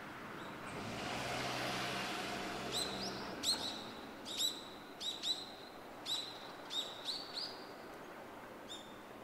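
A bird giving a string of sharp, high chirps, about a dozen over five seconds, each a quick upward flick onto a short steady note. Before the chirps start, a soft rushing noise with a faint low hum swells and fades.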